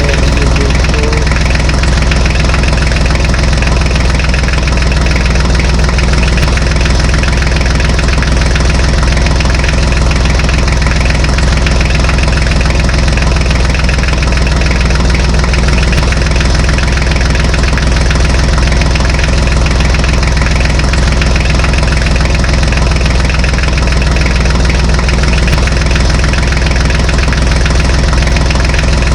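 Tractor engine idling steadily with a low, even hum and a faint knock.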